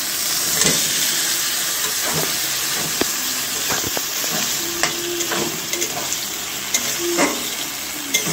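Marinated soya chunks and curd sizzling in hot oil and fried masala in a metal kadai. A spatula scrapes and knocks against the pan as they are stirred in.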